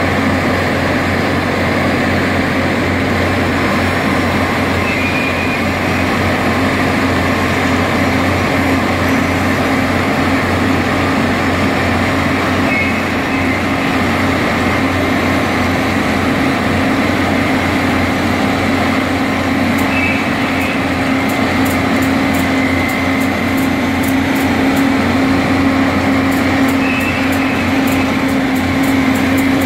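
SUZ 500 track-renewal train's machinery running steadily as it creeps along the track: a loud, continuous low drone with a hum that grows a little stronger about halfway through.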